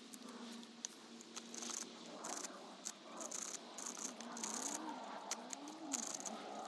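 Knife blade shaving and scraping a green sycamore bow drill spindle to shape: an irregular series of short, sharp scraping strokes, some in quick clusters.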